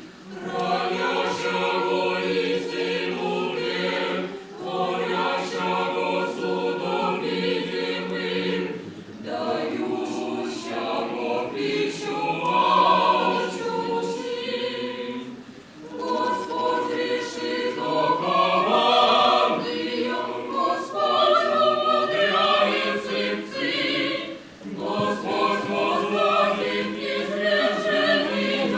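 A choir singing in several voices, in long phrases with short breaks between them and a low note held underneath in parts.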